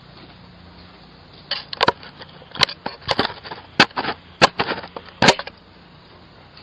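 Blows striking a Ring video doorbell: about ten sharp bangs over some four seconds, starting about a second and a half in, some in quick pairs.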